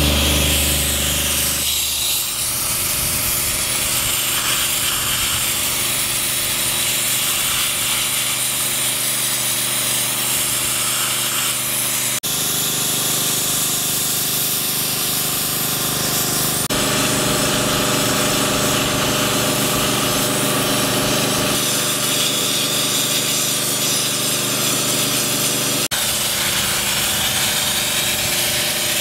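Sandblaster blasting two-pack paint off an aluminium boat hull: a steady, loud hiss of air and grit. Its sound changes abruptly a few times.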